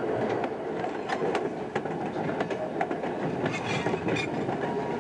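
Passenger coaches of the Rio Grande Ski Train rolling along, heard from aboard: a steady rumble with wheels clicking over rail joints at irregular intervals. A brief high squeal comes through about three and a half seconds in, as the train rounds a curve.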